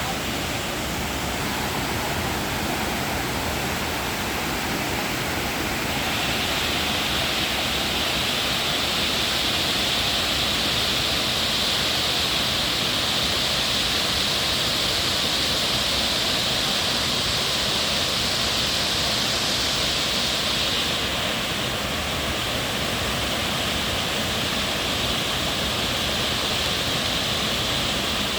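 Small river waterfall rushing steadily, a loud even hiss of falling water that turns brighter and hissier for a long stretch in the middle.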